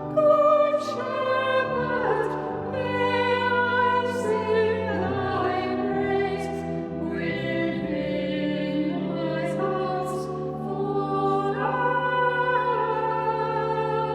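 Slow sung music: voices singing long held notes over steady low sustained accompaniment.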